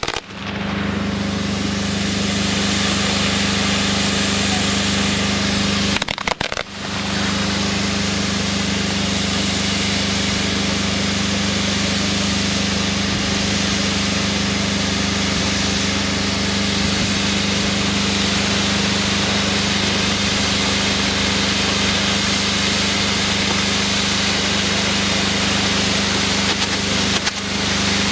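Gerb-driven firework wheels and fountains of a ground piece burning, giving a loud, steady hiss of spraying sparks with a low hum underneath. The sound cuts out briefly about six seconds in, then carries on evenly.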